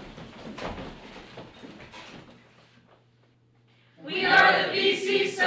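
Soft rustling and shuffling of people moving, a brief hush, then about four seconds in a group of young voices calling out loudly together in unison.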